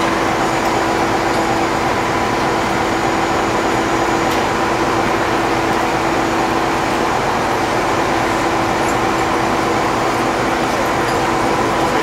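A running engine giving a steady mechanical drone, with a constant hum and a higher held tone over it that never change.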